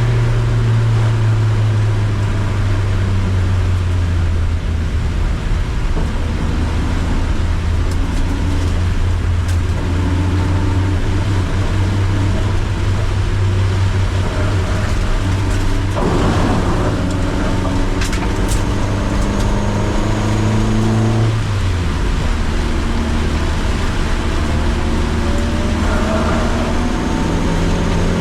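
Car engine running hard on a circuit, its pitch climbing repeatedly as the car accelerates, over a steady rush of tyre and road noise on a rain-soaked track.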